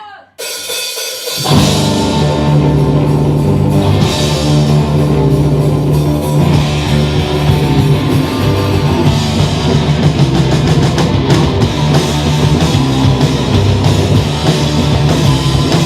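Heavy rock band playing live: distorted electric guitar, bass and drum kit. The full band comes in about a second and a half in and keeps going loud and dense.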